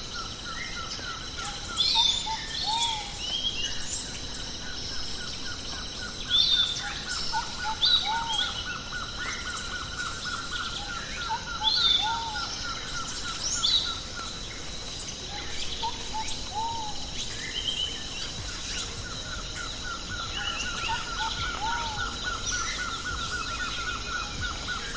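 Several birds calling and singing over a steady background of insects, with short arching whistled notes, sharp chirps, and a long, rapid, even trill that keeps starting and stopping.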